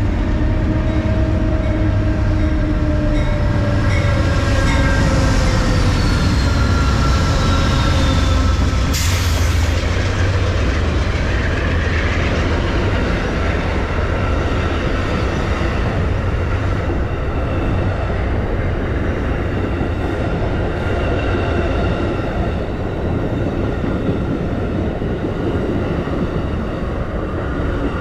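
Amtrak passenger train passing close by at a station platform: a continuous heavy rumble of wheels on rail as the locomotive and then a long string of coaches and private cars go by. Several thin ringing tones sit over the rumble, one falling in pitch in the first few seconds. A short sharp hiss comes about nine seconds in.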